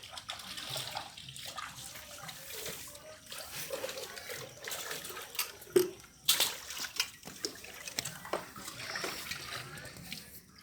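Irregular splashing and sloshing of water with scattered sharp clicks, loudest about six seconds in.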